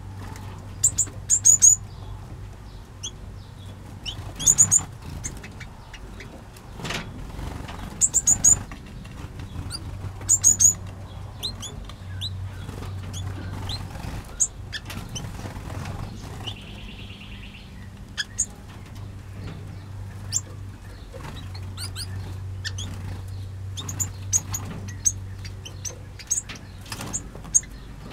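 Mixed aviary finches chirping: clusters of short, very high chirps every second or two, with the odd flutter of small wings and a short buzzy trill about two-thirds of the way in. A steady low hum runs underneath.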